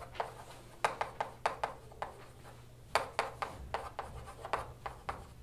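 Chalk writing on a chalkboard: an irregular run of sharp taps and short scratches as the letters are written.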